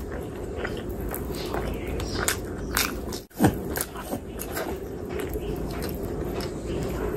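Close-miked chewing and wet mouth smacking of a big handful of spicy mutton biryani eaten by hand. About three seconds in, the sound cuts out for an instant and a single low thump follows.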